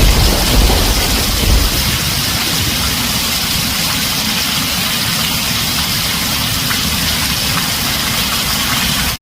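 Heavy rain drumming on a tin roof as a steady hiss, with a low rumble of thunder fading away over the first couple of seconds. The sound cuts out suddenly for a split second at the very end.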